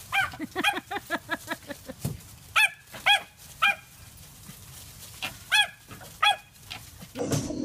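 Small dog barking excitedly in play. A fast string of lower yaps comes in the first two seconds, then louder, higher single barks about half a second apart, in two clusters.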